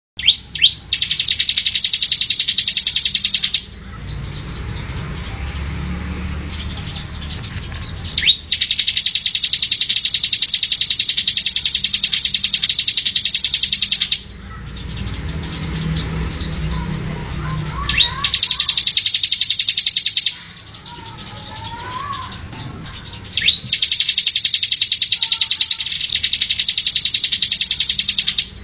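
Bar-winged prinia (ciblek) song: four long, loud, very fast chattering trills, each opened by a short sharp note. The trills last from about two to six seconds, with faint chirps and a low hum in the gaps.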